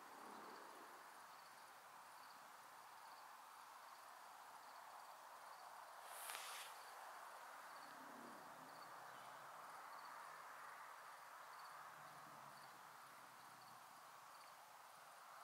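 Near silence with faint crickets chirping in an even rhythm, about two chirps a second, over a low steady hiss. A brief soft burst of noise about six seconds in.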